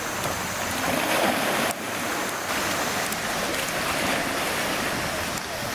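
Pool water splashing and sloshing as a California sea lion swims at the surface, over a steady rush of water.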